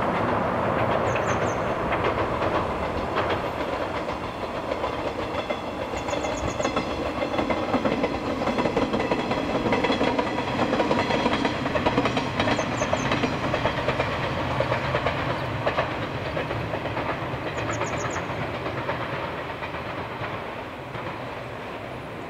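Four-car JR West 381-series electric limited express train passing, its wheels clicking over the rail joints. It is loudest about halfway through as it goes by, then fades away near the end.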